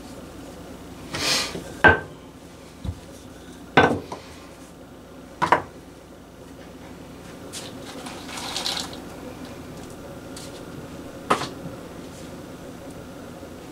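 Kitchen clatter: a spoon scraping and knocking against a small saucepan as filling is scooped out, with a few sharp taps and clicks from a plastic dumpling press being handled.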